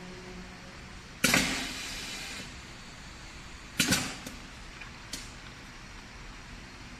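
Pneumatic pouch filling machine's air valves and cylinder letting go compressed air: a sharp hiss about a second in that fades over about a second, a shorter hiss near four seconds, and a small click a second after that.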